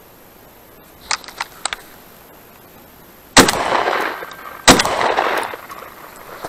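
Two shotgun shots about a second and a half apart, each followed by a long echo rolling away. A few short, sharp, quieter sounds come a couple of seconds before them.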